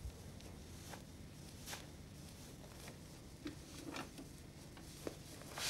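Quiet room tone with a few faint scattered clicks and knocks, a little busier in the second half.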